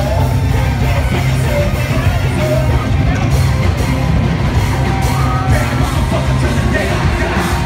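Live rap-rock band playing loud through the concert PA: drums, bass and electric guitar under a lead vocal into a handheld microphone.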